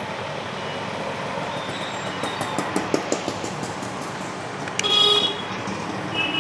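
Street traffic noise with a vehicle horn honking about five seconds in, the loudest sound, and a short second honk near the end. A scatter of sharp clicks and clatter comes around two to three seconds in.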